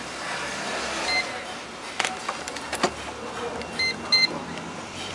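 A multimeter's continuity buzzer gives short beeps: once about a second in, then twice in quick succession near the end. Sharp clicks come from the test probes tapping solder joints on the circuit board. The beeps signal continuity between the probed points during a check for a short circuit.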